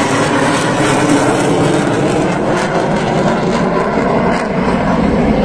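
Jet fighter's engines heard from the ground during a flypast: loud, steady jet noise, with the low rumble growing stronger as the jet moves off.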